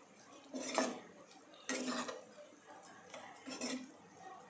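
A spatula stirring chopped tomatoes and green chillies in a cooking pot, scraping against the pan in short strokes about a second apart.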